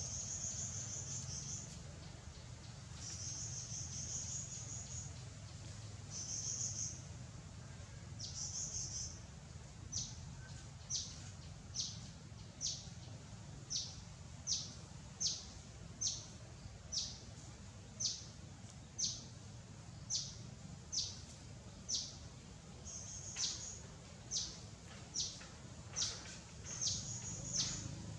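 Tropical forest insects and birds: a high buzzing comes in several long bursts over the first nine seconds, then a short high chirp repeats about once a second, over a low steady background hum.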